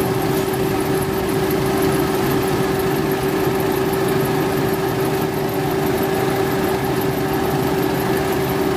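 Toyota Wigo engine idling with its newly replaced electric auxiliary fan running: a steady hum and rush of air, with the fan now free of abnormal noise.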